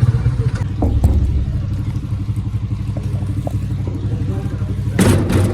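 Engine running steadily with a low, pulsing rumble; a brief noisy clatter comes near the end.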